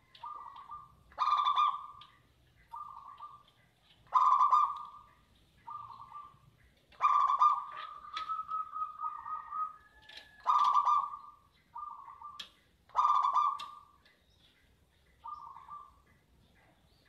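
Zebra dove (perkutut) singing its repeated cooing song. Five loud, ringing phrases come about every three seconds, with softer, shorter coos between them.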